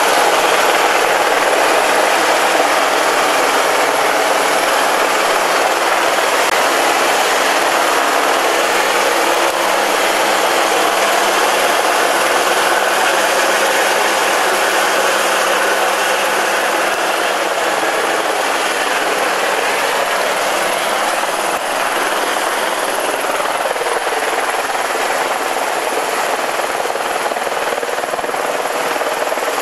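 Single-engine turbine helicopter flying close by, a loud steady noise of rotor and turbine that eases off slightly near the end.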